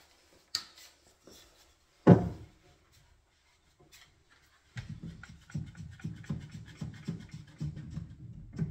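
One-handed bar clamp being handled on a wooden cabinet: a sharp knock about two seconds in, then from about halfway a rapid run of ratcheting clicks and clunks as the trigger is pumped to tighten it.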